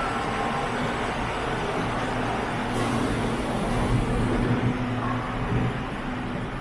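City street traffic: motor vehicles running past, with a steady low engine drone through the middle.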